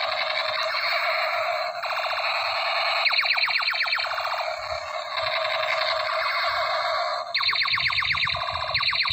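Electronic toy blaster gun's sound chip playing a rapid-fire effect through its small built-in speaker: a continuous buzzing, pulsing electronic tone with no bass, whose pattern changes about two seconds in and again near the end.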